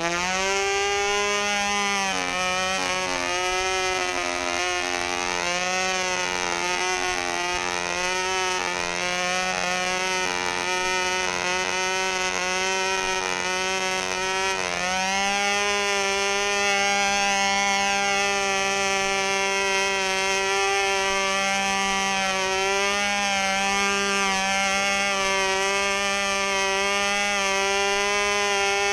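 Fox .35 two-stroke glow engine of a control-line model plane running flat out in flight, a high, buzzing whine. Its pitch wavers up and down through the first half, then holds steadier.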